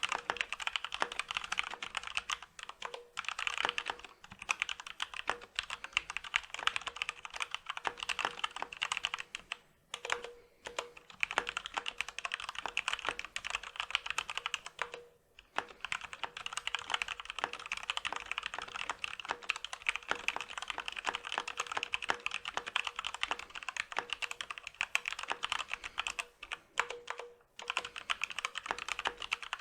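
Continuous fast typing on a Corsair K65 RGB Rapidfire mechanical keyboard with linear Cherry MX Speed Silver switches and stock ABS keycaps: a steady stream of key clacks, with a few brief pauses.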